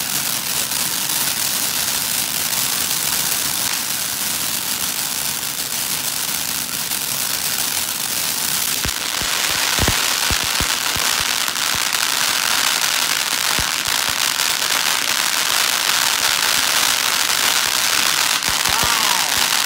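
Major League Pyro 'Freak Show' fountain firework spraying sparks with a steady hiss and crackle. About nine seconds in the hiss grows stronger and scattered sharp pops join it.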